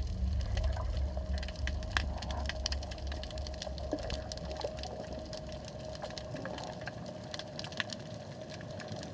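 Underwater sound picked up by a submerged camera: a constant crackle of sharp clicks with a faint steady hum, over a low rumble that fades out about halfway through.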